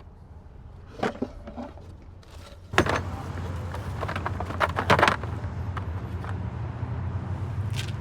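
Sharp clicks and knocks of parts and tools being handled, with a steady low hum that jumps louder about three seconds in.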